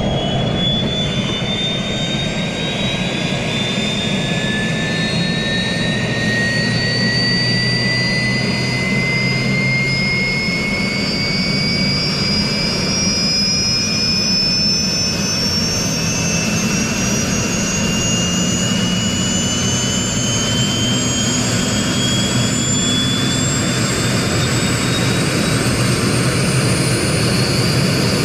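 Helicopter turbine engine running: a loud, steady rushing noise with high whines that rise slowly in pitch all the way through.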